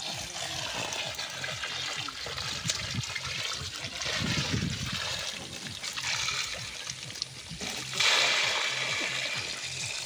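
Water splashing and streaming off a collapsible mesh fish trap (china jal) as it is hauled up out of the river, with a louder splash about eight seconds in.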